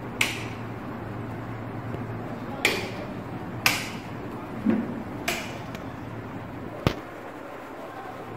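Wall light switches on a practice wiring board being clicked one after another, about six sharp clicks spread over several seconds, as the newly wired fluorescent tube lights and sockets are tested for function. A low steady hum sits underneath.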